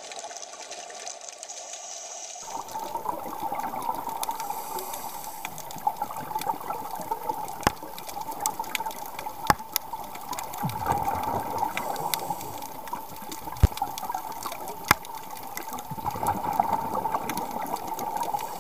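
Underwater sound picked up through a small camera's waterproof housing: a steady, muffled water hiss that grows louder about two seconds in, with a handful of sharp clicks scattered through it.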